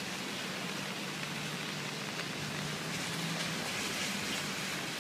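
Steady hiss of floodwater from a swollen creek running fast below, with a faint low hum underneath.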